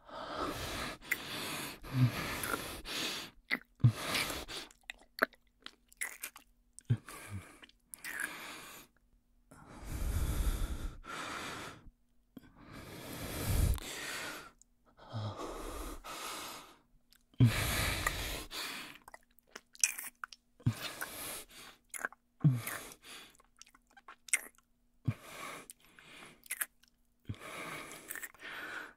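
Close-miked ASMR kissing: wet lip smacks and mouth sounds coming irregularly, with a man's heavy breathing between them, several long breaths among the shorter sounds.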